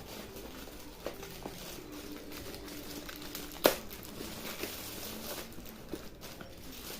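Packaging crinkling and rustling as a boxed keyboard is unpacked, with scattered small clicks and one sharp click about three and a half seconds in.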